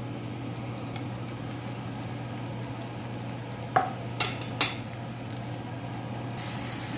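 Diced red onion sizzling steadily in melted butter in a cast-iron skillet. About four seconds in, a wooden spatula knocks against the pan three times in quick succession.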